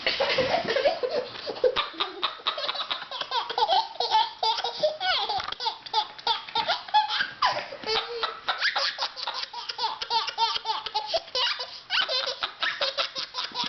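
A baby laughing in repeated bursts of belly laughter.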